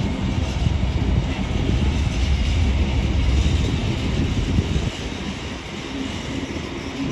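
Container freight train rolling past at speed, its wagon wheels rumbling on the rails, the noise easing a little about five seconds in.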